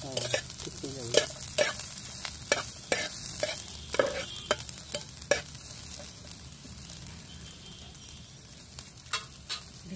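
Chopped onions and green chillies sizzling in hot oil in a frying pan while a metal spatula stirs them, scraping and clacking against the pan about ten times in the first five seconds. After that the frying sizzle goes on mostly alone, with a couple more taps near the end.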